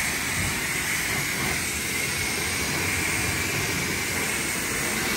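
A steady, loud rushing hiss of air or spray, holding level without a break.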